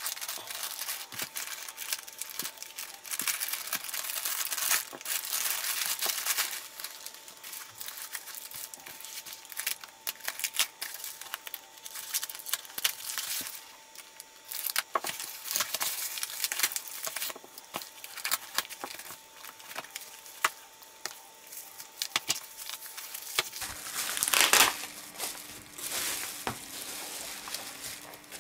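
Plastic packaging crinkling and tearing as a parcel is opened by hand: a plastic mailer bag, foam wrap snipped with scissors, and bubble wrap rustling. The handling comes in irregular crackly spells, loudest about 24 seconds in.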